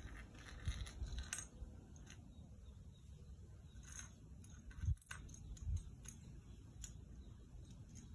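Scattered light clicks and taps of a plastic disposable lighter being batted about on a stone-tile floor by kittens, with a few soft low thumps.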